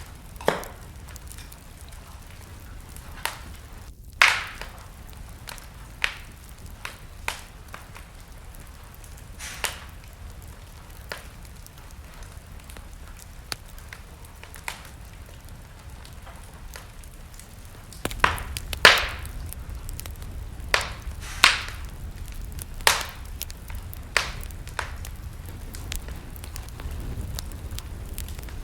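Wood fire burning in a fireplace, crackling and popping at irregular intervals over a low rumble of flames. The rumble grows louder about two-thirds of the way through, with a run of stronger pops.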